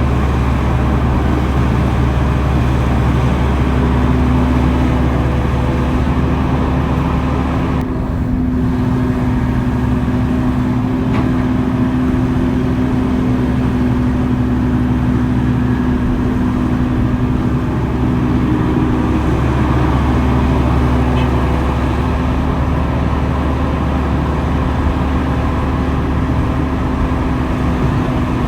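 Heavy earthmoving machine's diesel engine running steadily, a low drone with a steady hum.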